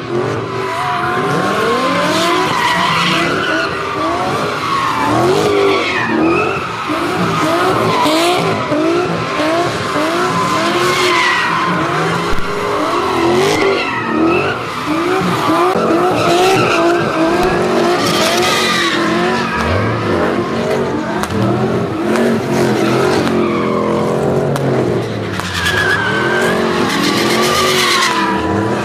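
A car doing donuts: its tyres squeal continuously against the pavement while its engine revs up again and again, rising in pitch a bit more than once a second.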